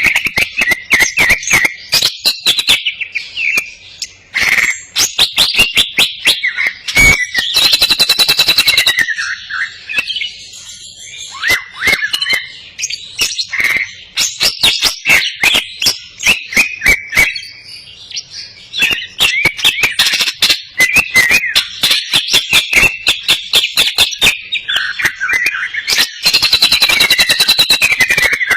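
Green leafbird (cucak ijo) singing loudly and without pause, a busy mix of chirps and whistled phrases that includes mimicked cililin song, with many sharp clicks. Two long, fast rattling trills come about eight seconds in and near the end.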